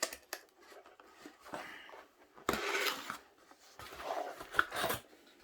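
Cardboard keyboard packaging being handled and opened: a few sharp taps, then several bursts of scraping and rustling as the box is slid and pulled apart.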